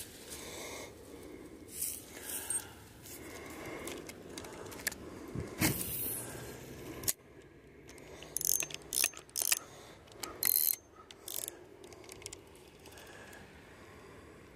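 Fishing reel being cranked, its gears clicking and whirring in irregular spurts.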